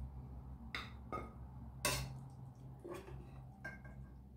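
Steel ladle knocking and scraping against a cooking pot and serving dish while chicken pieces are scooped out of gravy: a few scattered clinks, the loudest about two seconds in, over a low steady hum.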